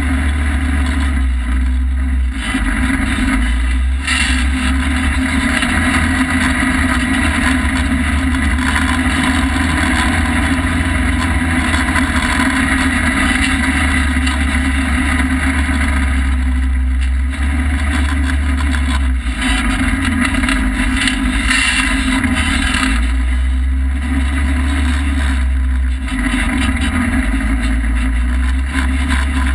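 2013 Polaris RZR side-by-side running steadily at speed over sand: loud, continuous engine and driving noise from the open cab.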